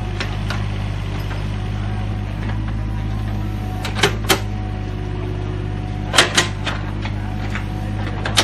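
Hitachi ZX40U mini excavator's diesel engine running steadily under digging load, with sharp clanks in pairs about four and six seconds in and once more near the end as the bucket works through soil and broken brick.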